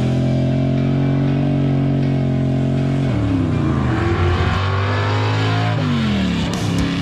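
A car engine held at high revs, then falling in pitch about three seconds in and dropping and climbing again near the end, as the car changes speed.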